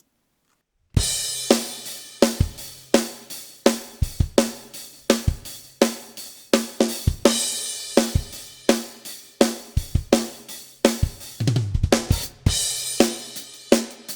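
Recorded drum kit played back, with kick, snare, hi-hat and cymbals in a steady beat that starts about a second in. There is a short fill near the end.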